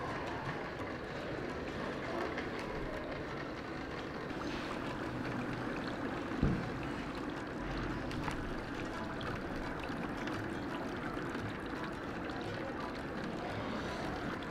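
Dry ice fizzing and bubbling steadily as its fog spills over the serving box, with a single short knock about six and a half seconds in.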